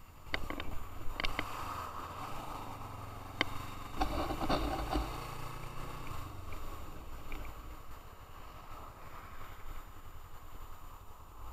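Motorcycle engine running as the bike rides along, with a steady rush of wind and road noise over it. A few sharp clicks and knocks come in the first five seconds, then the sound settles.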